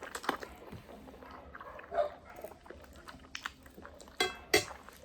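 Eating sounds: scattered clicks and small wet smacks from the noodles and utensils. About four seconds in, two short, loud, high-pitched squeaks follow close together.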